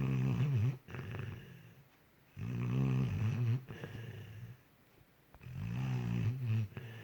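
Sleeping pit bull snoring, three long, rasping snores about three seconds apart.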